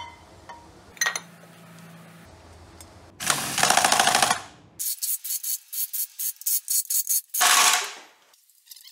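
Cordless impact wrench hammering in the bolts of a ZF 16S truck gearbox's top cover: one long burst, then a run of quick short blips, then another burst near the end. Two light clicks come before it.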